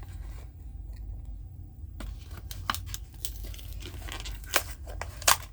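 A die-cast toy car's plastic blister pack and card being opened by hand: crinkling and tearing, with sharp cracks that grow louder over the second half.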